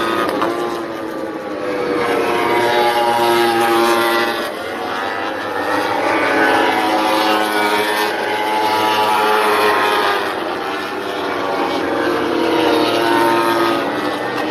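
MotoGP racing motorcycles' four-cylinder engines at high revs as several bikes run past on the circuit. Their overlapping notes rise and dip again and again through gear changes.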